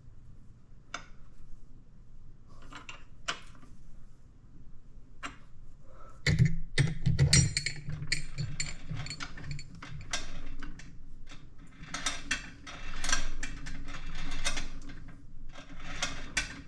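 Metal clicks, clanks and rattles from hand adjustments to a 1929 South Bend lathe's between-centers setup (lathe dog, tailstock and live center). A few separate clicks for the first six seconds, then denser clanking with a low rumble.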